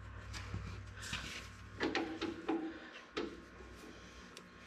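Hydraulic pressure line and its fitting nut being handled and worked into place under a Ford 3000 tractor: a handful of light knocks and clicks spread over about three seconds, a couple of them ringing briefly.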